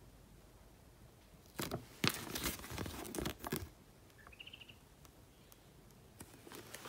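Paper being handled and unfolded: a few bursts of crinkling and rustling between about one and a half and three and a half seconds in. A brief faint high chirp follows a second later.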